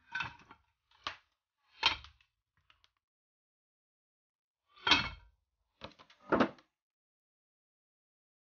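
Sharp clanks and knocks of a metal cooking pot and its lid as the pot is opened and worked with a utensil: three knocks in the first two seconds, then three more about five seconds in.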